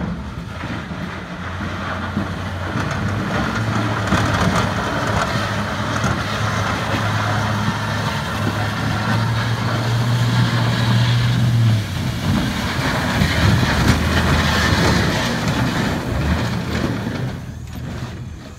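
Chevrolet Silverado plow truck's engine running under load as it pushes snow, with the steel plow blade scraping across icy concrete. The engine's steady tone holds for about ten seconds, then drops away about twelve seconds in as the truck reaches the pile.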